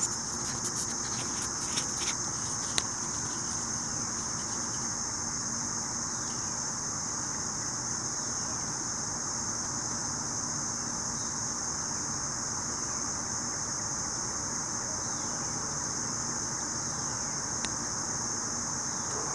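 Steady high-pitched chorus of insects, with a few sharp clicks in the first three seconds.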